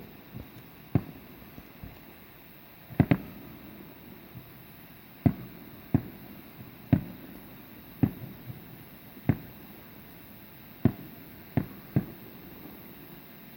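Aerial firework shells bursting: about a dozen sharp bangs at irregular gaps of roughly a second, each followed by a short echoing tail, with two bangs close together about three seconds in.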